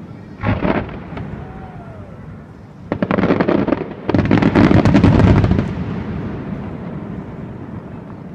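Fireworks bursting overhead: a single bang about half a second in, then two runs of rapid crackling reports from about three seconds in, loudest just before the end of the second run, fading into a rumble.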